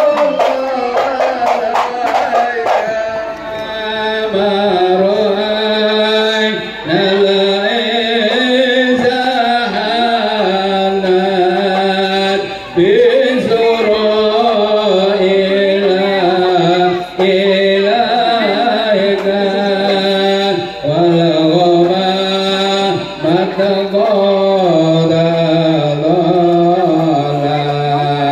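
Music: a voice singing a melody in long, wavering held notes over a steady low accompaniment, pausing briefly every few seconds.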